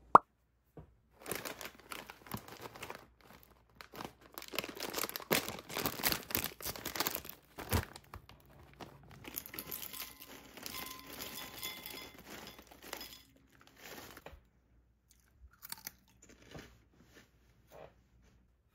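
A plastic snack bag crinkling while shrimp chips are poured from it into a glass bowl, with a dense run of rustling and crunching that thins to a few scattered clicks near the end.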